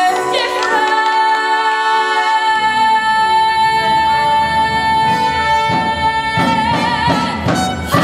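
Stage-musical song: a woman singing one long held note, which wavers into vibrato near the end, while the accompaniment fills in underneath from about two and a half seconds in.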